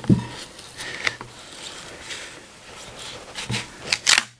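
Thin-bladed knife scraping and prying under a thin planed pine veneer held to the bench with double-sided carpet tape: quiet rubbing with a few short clicks and crackles, the loudest just after the start and others near the end.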